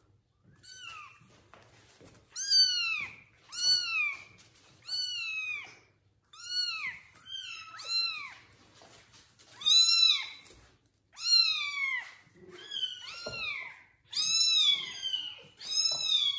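Kittens meowing over and over, high-pitched calls about one a second, each rising and then falling in pitch.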